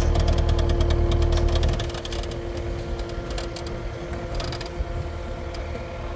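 An engine idling steadily, its low rumble heavier for the first two seconds, with scattered sharp clinks and knocks of steel bars against the steel platform frame.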